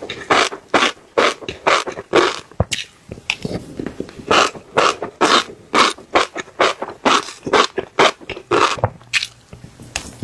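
Fish roe squelching in quick repeated bursts, about two to three a second.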